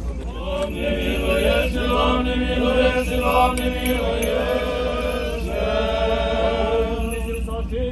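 Orthodox clergy chanting a slow funeral hymn, several voices moving over a steady held note.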